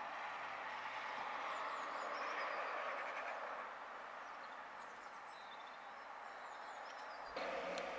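Small garden birds giving short, high chirps and calls over a steady background rumble that fades about halfway through. Shortly before the end the background noise jumps up abruptly, with a click.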